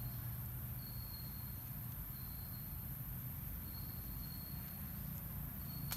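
A cricket-like insect trilling on one high steady note in stretches of about a second, repeating every second or two, over a low steady rumble.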